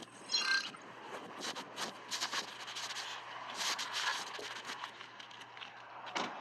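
Phone recording playing back: a steady low hum under scratchy clicks and rustles, with a brief run of short stepped tones about a third of a second in. It is the unexplained noise heard when recording starts on the phone.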